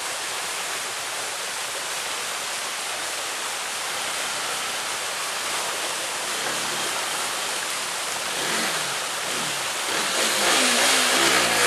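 Steady rush of a shallow stream over rocks. From about eight seconds in, a motorcycle engine revs up and down as the bike is worked through the water, louder near the end.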